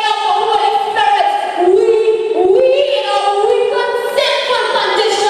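A group of voices singing together in held notes that step up and down in pitch.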